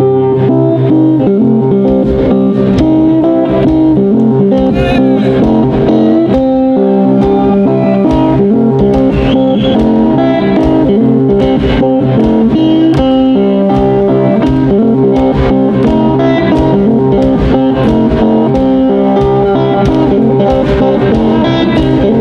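A blues band playing live on electric guitars, upright bass and drums, with a harmonica near the start, at a steady driving beat.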